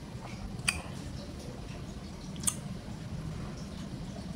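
Plastic drink cup and straw being handled: two short sharp clicks about two seconds apart, over a steady low hum.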